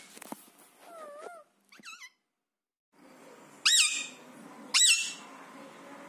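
Rose-ringed parakeets calling: a few soft, wavering calls in the first two seconds, then two loud, sharp calls that rise and fall in pitch about a second apart.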